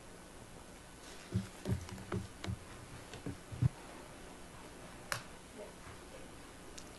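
Handling noise at a lectern picked up by its microphone: a quick run of dull knocks and thumps as papers and hands touch the lectern, then a single sharp click. A faint steady hum runs underneath.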